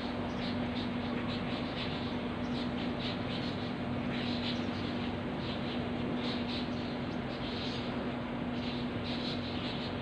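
Many birds chirping at once, short high calls overlapping without a break, over a steady low hum.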